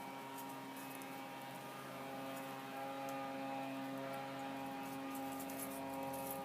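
A steady electrical hum with a stack of even overtones, with faint short clicks scattered over it.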